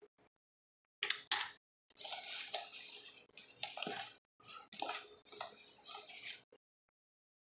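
Two short clatters about a second in, then a metal spoon scraping and digging into loose corn starch in a cardboard box, with the box crackling as it is handled, in scratchy spells with brief pauses.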